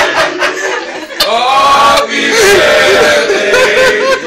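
A small group of people talking over one another and laughing, with a sharp knock about a second in.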